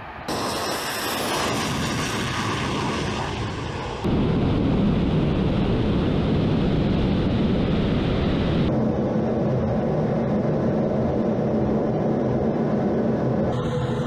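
Su-25 attack aircraft twin turbojet engines running at high power on takeoff and low flight, a steady rushing jet noise. It gets louder about four seconds in and changes character abruptly twice more as the shots cut.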